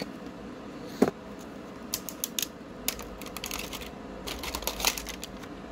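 Handling clicks and taps as a gas regulator is taken out of its cardboard box and brought to a gas bottle's valve, with one sharper knock about a second in and clusters of small clicks after it.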